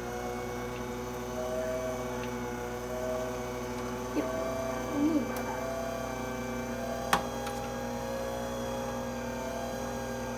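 Steady electrical hum made of several held tones, with faint small handling noises and one sharp click about seven seconds in.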